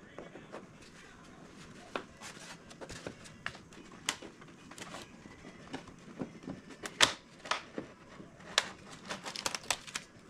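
Scattered light clicks, creaks and knocks of an RC model's battery hatch being pried loose from the fuselage, where it is held by cured epoxy-microballoon filler and strong magnets. The sharpest snap comes about seven seconds in, and a quick run of small ticks follows near the end as the hatch lifts free.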